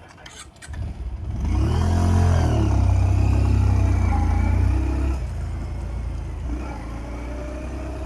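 Motorcycle engine starting about a second in and revving up and back down, held loud for a few seconds, then settling to a steadier, quieter run.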